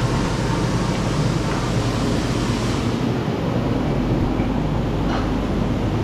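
Wood-Mizer LT35 band sawmill running at full power, its Kohler gas engine droning steadily; a high hiss over the engine thins out about halfway through.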